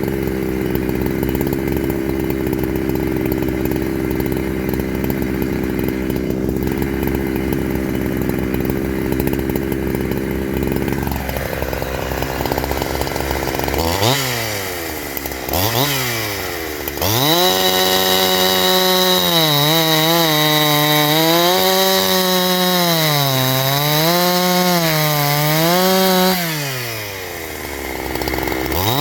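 Stock two-stroke chainsaw with its factory muffler, working through a cut under load at low engine speed. About eleven seconds in it drops off, is revved up twice, then runs at high revs through another cut, its pitch dipping and rising about every second. Near the end it falls back to idle and revs up again.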